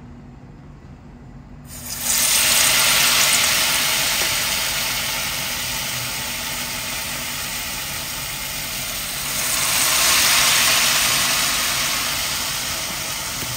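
Battered banana fritters sizzling in hot oil in a wok: a loud sizzle starts suddenly about two seconds in, eases off slowly, then swells again around ten seconds. A low steady hum runs underneath.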